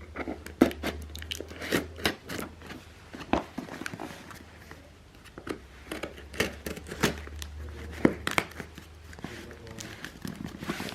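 A small box's packaging being opened by hand: irregular crinkling, tearing and sharp clicks of wrapping and cardboard.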